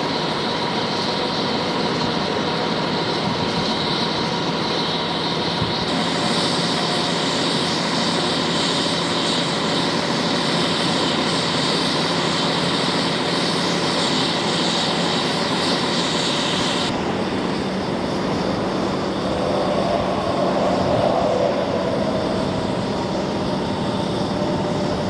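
Steady drone of a fire engine's diesel engine running its water pump, with no break in the noise; its tone shifts abruptly about 6 and 17 seconds in.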